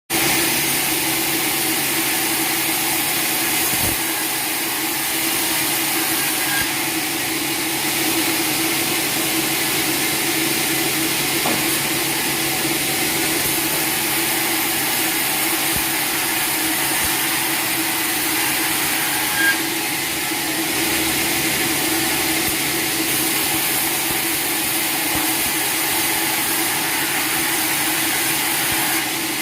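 Sawmill machinery running steadily: a constant drone with a low hum under a strong hiss.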